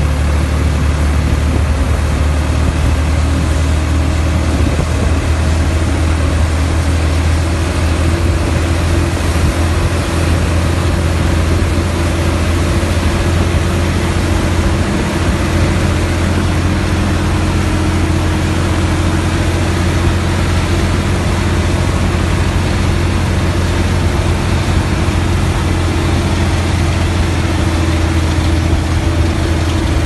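Deutz-Fahr C7206 combine harvester running steadily while harvesting wheat: a deep, even engine hum under the constant noise of its threshing and header machinery.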